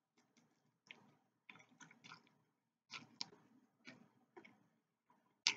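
A person chewing a mouthful of teriyaki noodles: faint, irregular wet mouth noises and small clicks, with one louder one near the end.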